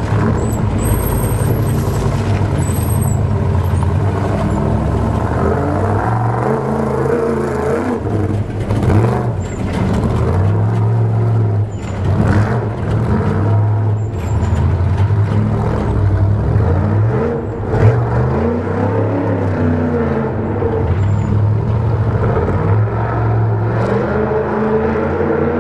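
Off-road Trophy Truck race engines revving hard as the trucks pass one after another. The engine pitch climbs and drops again and again with throttle and gear changes.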